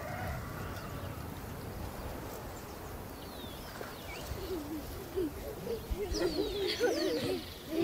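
Quiet outdoor ambience with faint bird calls: short high chirps now and then, and a lower wavering call that comes in about halfway through.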